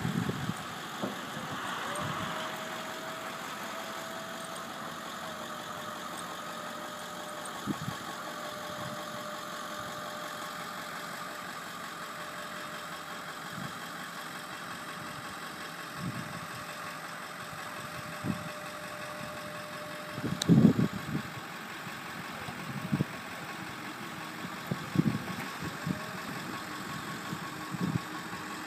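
A Ford E350 van's engine idling while it powers the Altec bucket boom. A steady whine runs from about two seconds in until about two-thirds of the way through as the boom moves. Scattered clunks and thumps come through, the loudest about two-thirds of the way through.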